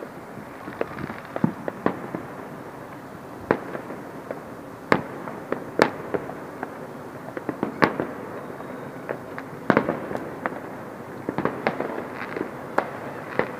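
New Year fireworks and firecrackers going off in the distance: irregular sharp bangs and pops, some in quick clusters, over a continuous crackle from many bursts at once.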